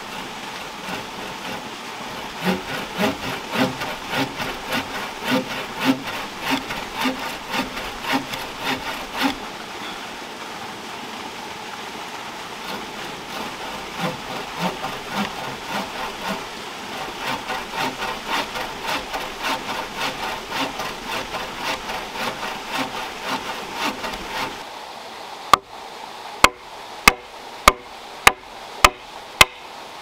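Hand frame saw cutting through a log with a coarse-toothed blade, about two strokes a second, in two spells with a pause between. Then about seven sharp knocks, roughly two every second, of a mallet driving a chisel into a log to cut a joint.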